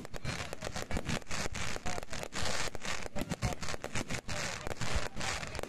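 Aerial fireworks bursting: a dense, continuous crackle of many small pops from crackling stars, with a few heavier low booms mixed in.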